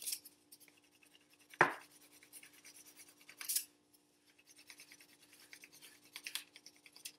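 Crayon scratching and rubbing on a cardboard tube, faint and on and off, with a single sharp knock about a second and a half in.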